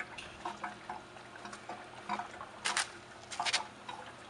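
Handling noises as a person moves about and takes hold of a pool pump motor: light clicks, then two pairs of short scuffing slaps about a second apart near the end.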